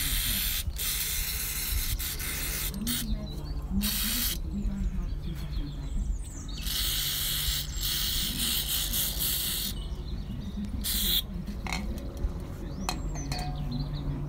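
Aerosol brake cleaner sprayed in about six hissing bursts, mostly short, with one longer burst of about three seconds in the middle. It is flushing old dried grease off a gear-selector linkage pivot.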